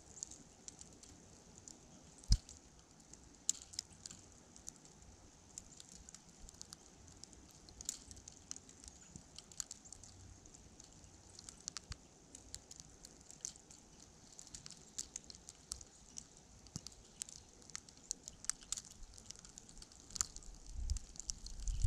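Faint, irregular ticking and pattering of falling snow striking the exposed camera and microphone, with one sharper knock about two seconds in. Near the end, wind starts buffeting the microphone with a low rumble.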